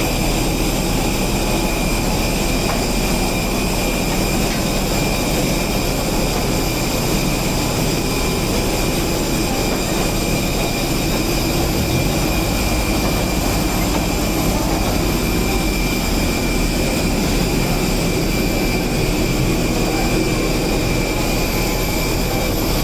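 Steady jet-aircraft noise on an airport apron: an even roar with a high, constant whine over it.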